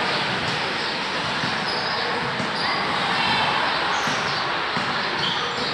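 Basketball bouncing on a hard court, over a steady, even background noise.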